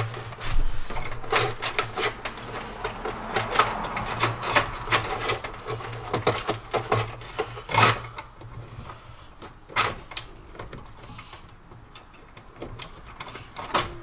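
Hands working a trailer wiring harness through a minivan's plastic rear trim panel: a run of quick clicks, scrapes and rustles of wire and plastic, busiest over the first eight seconds or so and sparser near the end.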